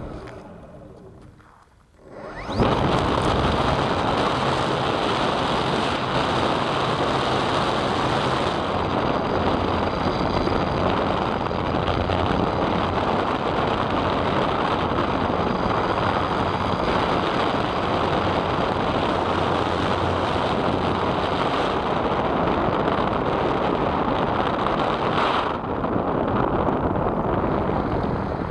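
Steady rush of airflow over a camera mounted under an E-flite Timber RC plane in flight, with the low drone of its electric motor and propeller beneath it. It comes in abruptly about two and a half seconds in, after a short quiet stretch.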